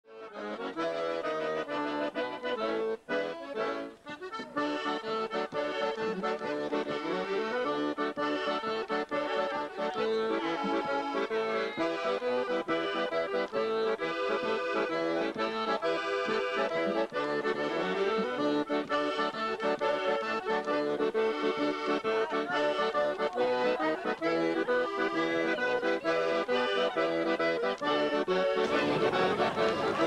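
Accordion music playing a tune in a traditional style, with held chords. Near the end a steady rush of outdoor background noise comes in underneath.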